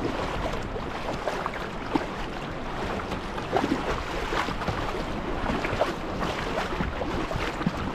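Water splashing and trickling against a kayak's hull as it moves through calm sea, with many small splashes and drips over a rushing wash.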